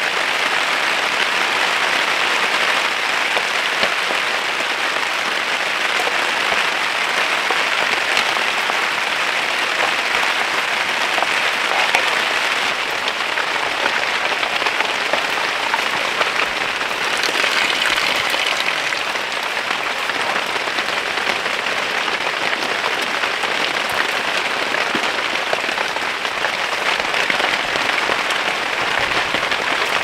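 Rain falling steadily on the fabric of a hot tent.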